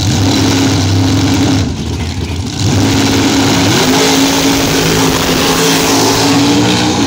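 Two drag-race cars at the starting line, engines revving loudly with a short drop about two seconds in. Both launch at full throttle, the engine pitch climbing about four seconds in as they pull away down the strip.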